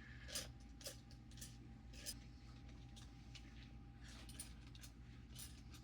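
A hand ratchet and socket clicking faintly and unevenly as they loosen the 8 mm valve cover bolts on a Toyota 7M-GTE engine, with a steady low hum underneath.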